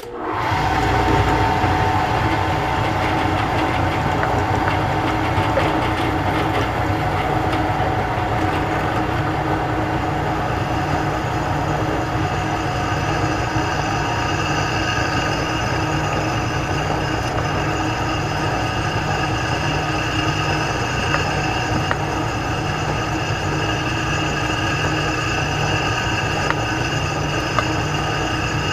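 Drill press switched on, its motor coming up to speed within about a second, then running steadily while drilling bolt holes through a steel plate.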